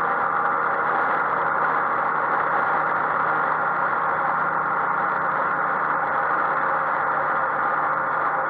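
Yamaha XMAX 125 maxiscooter's single-cylinder four-stroke engine running at a steady motorway cruise, mixed with wind and road noise, heard from a camera mounted on the scooter. The sound stays even, with no change in speed or revs.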